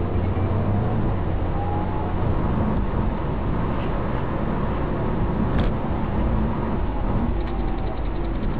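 A car driving along, with a steady rumble of engine and road noise and a brief click about five and a half seconds in.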